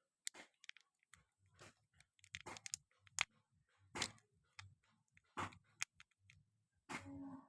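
Close-miked chewing and crunching of hard candy and chocolate: irregular crisp crunches and mouth clicks, with a brief squeak near the end.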